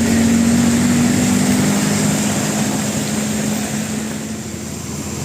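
Heavy vehicle's engine running steadily under an even hiss, easing off a little about four seconds in.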